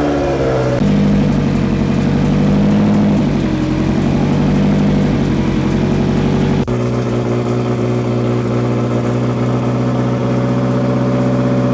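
Turbocharged Toyota 1ZZ-FE four-cylinder engine in an MR2 Spyder idling steadily during its first run after the build. Its pitch steps abruptly about a second in and again about two-thirds of the way through.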